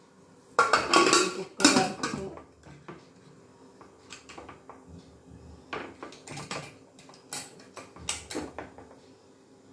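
Aluminium pressure cooker lid being fitted onto the pot: a burst of loud metal clanks in the first two seconds, then several lighter clinks and knocks as the lid is worked into place and closed.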